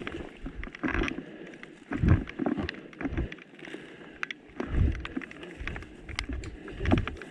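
Footsteps on a woodland path with rustling of clothing and kit: irregular dull thuds, unevenly spaced, with scattered light ticks and brushing between them.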